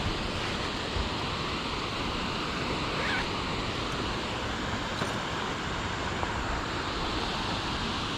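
Steady rushing outdoor noise with no distinct events, with a faint short high sound about three seconds in.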